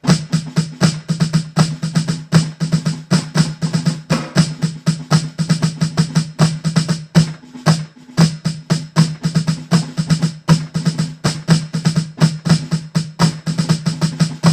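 Snare drum played solo: a fast, steady run of strokes with flams, flam drags, triplets and accented notes, the B section of a snare étude played twice through with its repeat.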